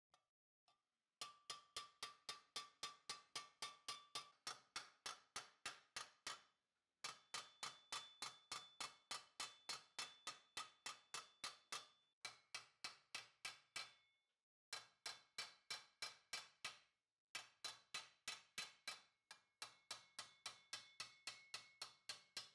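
Small hammer's narrow peen striking a thin steel plate held over a stake in a vise, in quick even runs of about four blows a second with short breaks, the plate ringing with each blow. The plate is being cold-worked, the blows driving a flute along a drawn line.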